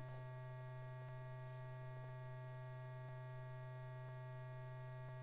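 Steady low electrical hum with faint hiss on an old film soundtrack, broken by a few faint ticks.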